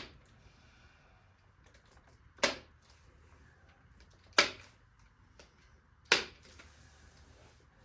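Hand-held chiropractic adjusting instrument firing: four sharp clicks about two seconds apart as it delivers single, gentle thrusts to the spine.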